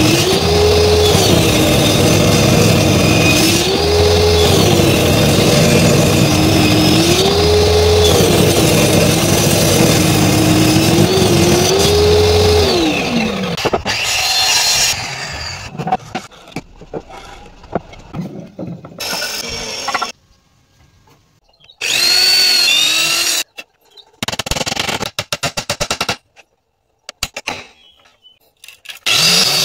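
Table saw running and ripping wooden boards into strips, its motor pitch rising and falling four times as the boards go through. After that come short, abruptly cut bursts of workshop tool noise, ending in a run of rapid, evenly spaced clicks.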